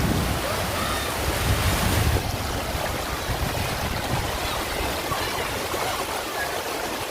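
Steady rush of flowing water, a continuous hiss, with a low rumble that drops away about two seconds in.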